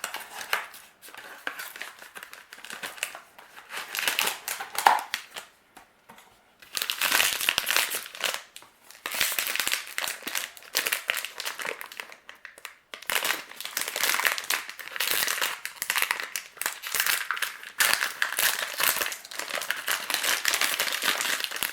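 Crinkly packaging being handled and torn open as a toy mystery box and the bag inside it are unwrapped. The crinkling is patchy at first, stops briefly, then runs on almost without a break from about a third of the way in.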